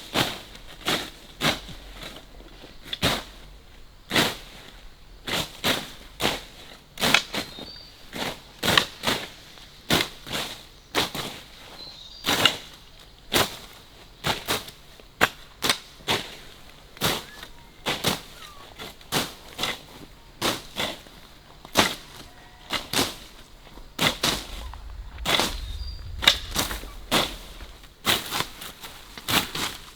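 Hand tools chopping repeatedly into earth and brush: sharp single strikes, about one to two a second at an uneven working pace.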